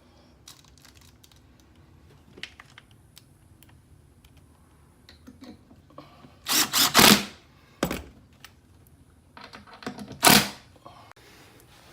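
Power drill driving a screw to fasten a hinge-lid bracket to a boat deck, running in short loud bursts about two-thirds of the way through and again near the end, between small clicks and taps of the bracket and hardware being handled.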